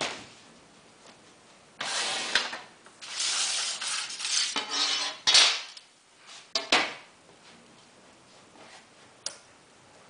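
Roller-blind fabric and an aluminium bar being handled on a work table: a few seconds of rustling and scraping, then a few light metallic clicks.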